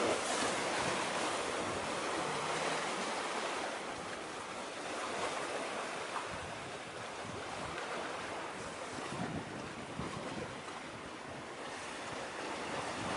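Sea waves washing and wind buffeting the microphone: a steady rushing noise that swells and eases every few seconds.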